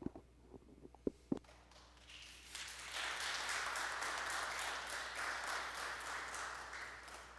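A small congregation applauding. The clapping starts about two seconds in, swells, then thins out and fades near the end. Two faint knocks come just before it.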